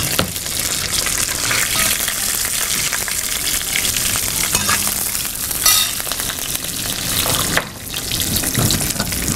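A tempering of cumin, chana dal, urad dal and garlic sizzling in hot oil and ghee in a metal pan, steady frying hiss. A spoon stirs through it, with scattered clicks and scrapes against the pan.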